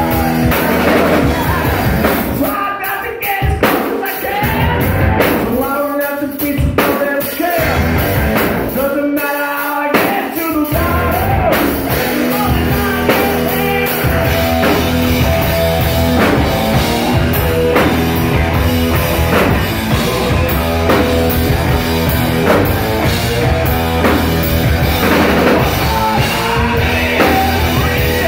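Live rock band playing loud: a man singing over electric guitar, drum kit and bass guitar. In the first third the low end drops out in short breaks, leaving the voice and guitar on their own, then the full band plays steadily.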